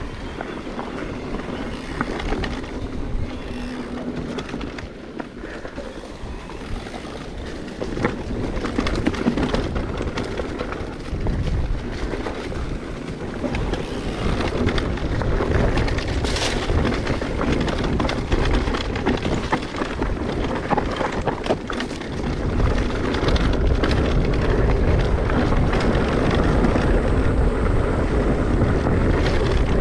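Mountain bike riding on a trail, with wind buffeting the microphone, tyre and trail noise, and frequent small clicks and rattles. It gets louder about three quarters of the way through.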